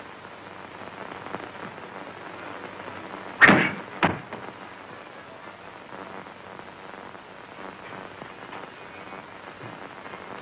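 Two sharp bangs about two-thirds of a second apart, over the steady hiss of an old film soundtrack.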